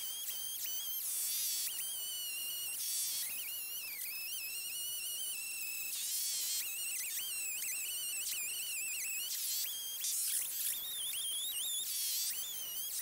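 Chainsaw cutting into a pine stump, a high whine that wavers in pitch as the chain bites, broken every few seconds by short rasping bursts of cutting noise.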